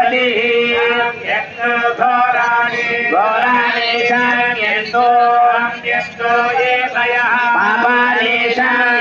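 Male voice of a Hindu priest chanting Sanskrit mantras on a few held notes, heard through public loudspeakers.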